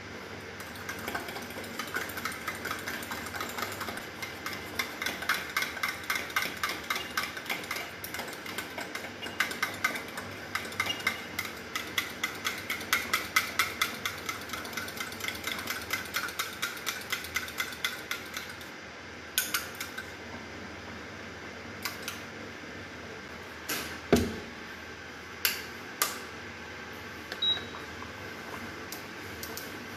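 Metal spoon beating dahi (curd) in a stainless-steel tumbler: quick, regular clinking for about 18 seconds. Then come a few separate metal clanks and a thump as cookware is set down on the cooktop.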